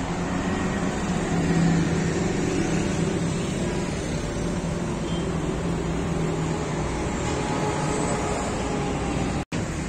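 Steady traffic on a multi-lane city expressway: cars and trucks going by with a continuous low engine hum and tyre noise. The sound cuts out for a split second near the end.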